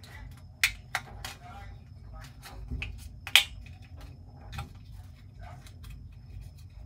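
Plastic clicks and snaps from a fingertip pulse oximeter's casing being handled and pressed together during reassembly: about half a dozen sharp clicks, the loudest about three and a half seconds in, over a low steady hum.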